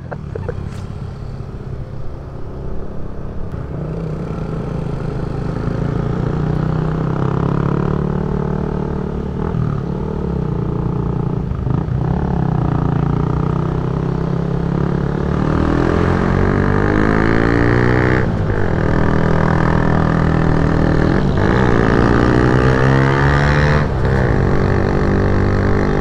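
Single-cylinder engine of a Yamaha motor scooter under way, with road and wind noise. The engine pitch climbs through the second half as the scooter speeds up, and a few brief knocks sound along the way.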